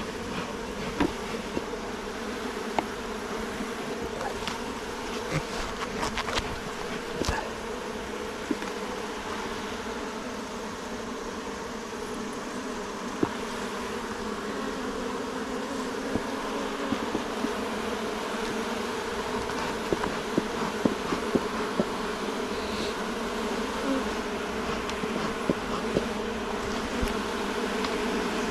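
Many honeybees buzzing around an opened hive, a steady many-voiced hum, with scattered small clicks and knocks over it.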